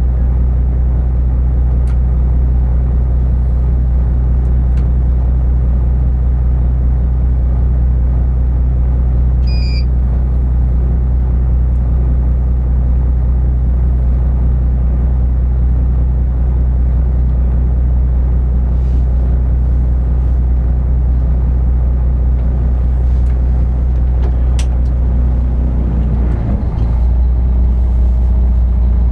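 Inland cargo ship's diesel engine running steadily, heard on board as a deep, even drone, slightly louder near the end.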